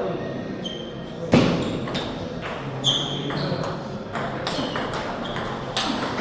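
Table tennis balls clicking and pinging off bats and tables, a few scattered sharp knocks with the strongest about a second in, over background chatter.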